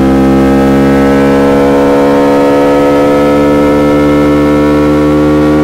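KTM Duke 200's single-cylinder engine running through an SC-Project SC1-R exhaust with a custom powerbomb header, holding a steady engine speed while riding.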